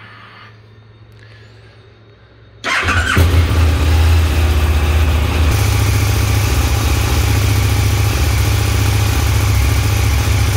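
KTM 1290 Super Duke R's V-twin engine on its stock exhaust, cranking briefly and catching about two and a half seconds in, then idling steadily and loudly. Its tone shifts slightly higher about halfway through.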